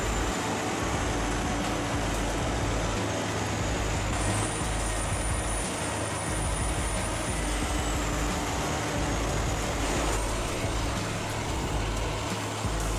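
Material handling excavator's diesel engine and hydraulics running steadily under load, with a thin high whine that rises about four seconds in and drops back a few seconds later.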